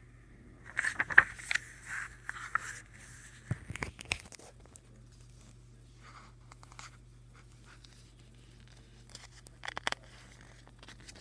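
Pages of a paperback graphic novel being turned and handled: paper rustling and crinkling with small clicks for a few seconds, then a shorter rustle near the end.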